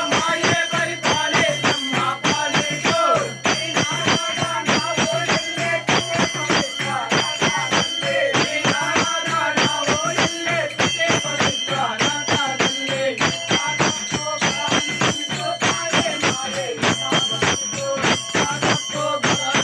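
Devotional puja music with a fast, steady beat of sharp strokes, a bell ringing continuously, and a wavering melody over it. Hands clap along.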